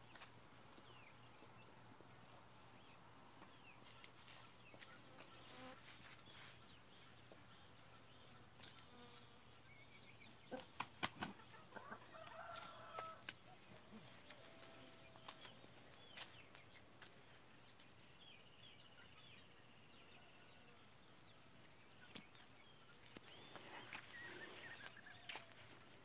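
Quiet farmyard ambience: a steady high insect trill, faint scattered bird chirps and soft chicken clucks, with a short run of sharp clicks about halfway through.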